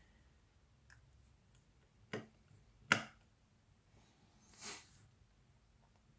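Quiet small clicks and taps as parts are pressed into place inside an open iPhone 7 Plus during reassembly: three short clicks, the loudest about three seconds in, then a brief scrape a little later.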